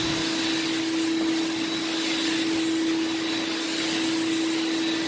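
Carpet-cleaning extraction wand drawn across carpet under suction, pulling moisture out. The vacuum airflow makes a steady hiss over a steady hum.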